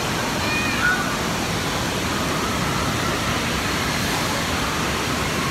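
Steady rushing din of an indoor water park: running water and echoing crowd noise, with a few faint distant high-pitched voices in the first second.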